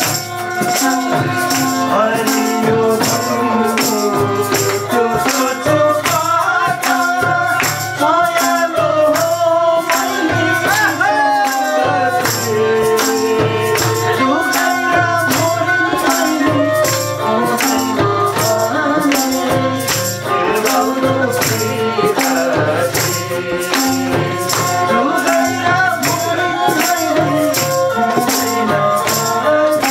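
Nepali folk music played live: a bowed sarangi and a man singing, over a madal hand drum and a jingling percussion keeping a steady, even beat.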